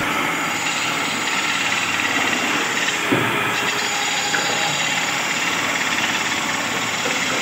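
Wood lathe running while a long hand-held turning tool cuts into a large spinning wooden blank: a steady scraping noise of shavings being peeled off.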